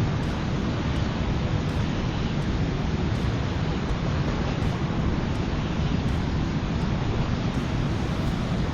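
Steady rushing of water pouring through a river spillway: an even, unbroken noise, heaviest at the low end.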